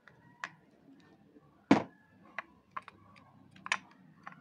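Scattered small clicks and knocks of a Phillips screwdriver and the plastic and metal body of an opened electromagnetic hair clipper being handled, with one louder knock a little under two seconds in and another near the end.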